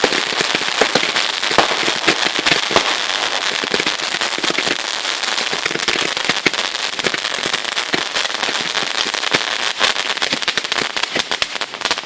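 Fireworks crackling: a dense, continuous run of rapid sharp pops and snaps, many per second, with no break.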